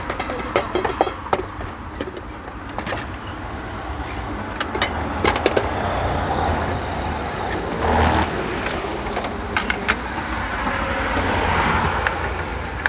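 Road traffic passing: a steady rumble that swells about eight seconds in and again near the end, with scattered sharp clicks and clinks over it.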